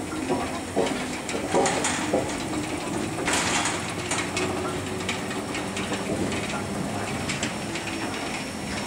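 DR class 52 steam locomotive (a two-cylinder 2-10-0) standing under steam and hissing steadily, with a louder burst of steam about three seconds in and scattered metallic clicks and clanks.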